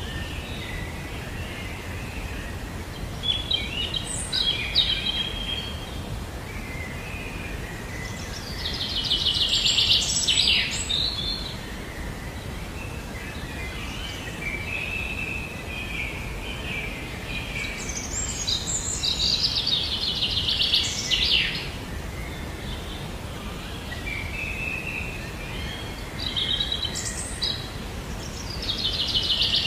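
Songbirds singing: a rapid trilled phrase, repeated roughly every eight to nine seconds, with softer chirps between, over a steady low background hiss.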